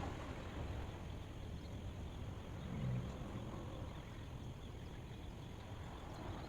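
Steady outdoor noise with wind buffeting the microphone in low rumbling gusts, one a little stronger about three seconds in.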